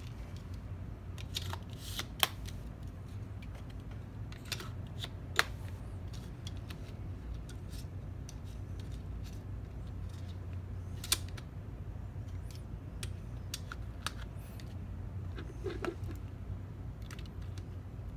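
Light plastic and metal clicks and taps as an HO model steam locomotive and the roller units of its test stand are handled and set in place. Three sharper clicks stand out, about 2, 5 and 11 seconds in, over a steady low hum.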